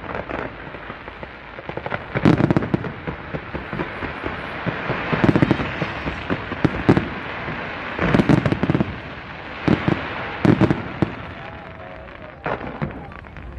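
Fireworks going off: clusters of sharp bangs every two seconds or so, with a continuous crackle and hiss between them.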